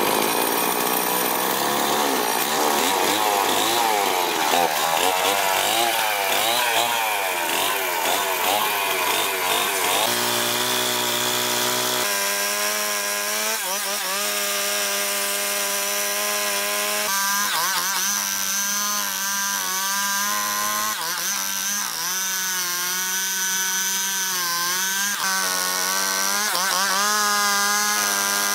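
Stihl two-stroke chainsaw running at rising and falling revs, then cutting into a log, its engine note dipping and recovering each time the chain bites into the wood.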